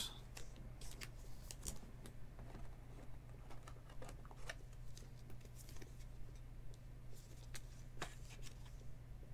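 A trading card being handled in plastic: slid into a soft penny sleeve and then into a rigid plastic toploader, giving faint scattered rustles and light plastic clicks, a few of them sharper.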